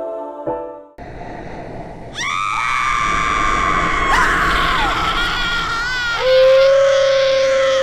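Piano music cuts off, then a low rumble starts. About two seconds in, loud screaming joins it, ending in one long held scream near the end.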